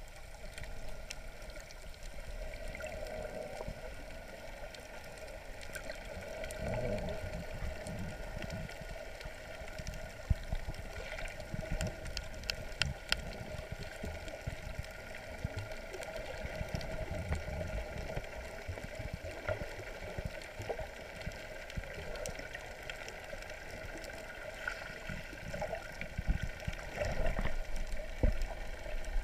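Underwater ambience through a GoPro's waterproof housing: muffled water movement and gurgling, with a faint steady hum and scattered sharp clicks.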